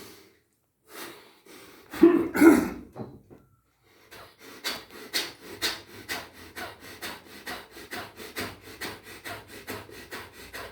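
A man doing pranayama breathing: one or two deep, audible breaths, then from about four seconds in a steady run of short, sharp breaths, about two a second.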